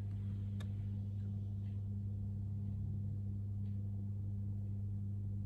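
Steady low hum, one deep unchanging tone with a fainter tone an octave above, with a faint click about half a second in.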